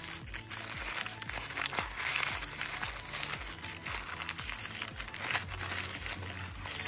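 Butter paper (parchment) crinkling and rustling as it is rolled and pressed around a shawarma wrap, over background music with a steady beat.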